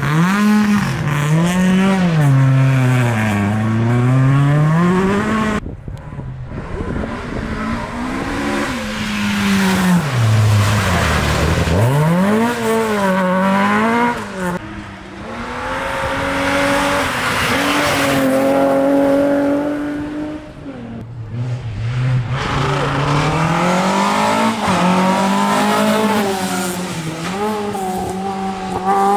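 Historic rally cars at full throttle, one after another, engines revving up and dropping back repeatedly through gear changes and corners, with tyre noise on a loose, wet surface.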